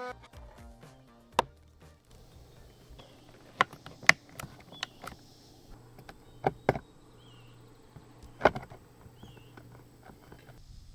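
Sharp clicks and knocks of tools and parts being handled, about seven at irregular intervals, the loudest around four seconds in and again near eight and a half seconds, over a faint steady hum.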